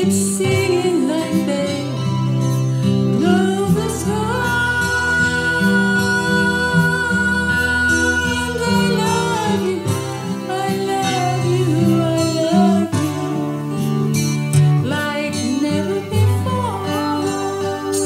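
A woman singing a slow song accompanied by a single acoustic guitar, with one long held note from about four to nine seconds in.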